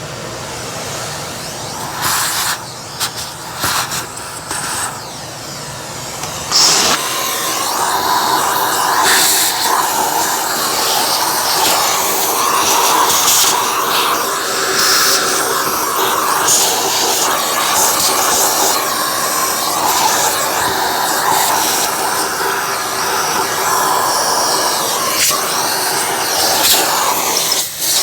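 Vacuum cleaner running and sucking dog hair off the parts of a partly dismantled vacuum, the note of the airflow shifting as the nozzle moves, and getting louder about six seconds in.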